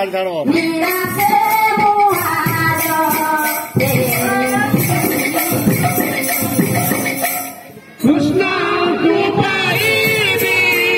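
Odia kirtan devotional music: voices singing over the beats of hand-played barrel drums (khol) and metallic jingling. The music dips briefly near four seconds in and drops out for a moment just before eight seconds, then comes back.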